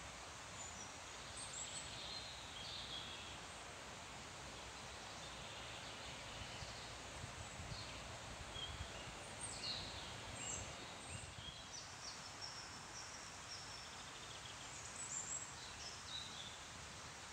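Small songbirds chirping and singing in short, scattered phrases over a steady soft hiss of rustling trees.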